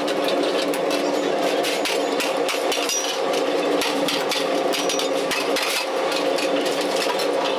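Workshop machinery running with a steady hum, overlaid by rapid, irregular sharp metallic ticks and clinks.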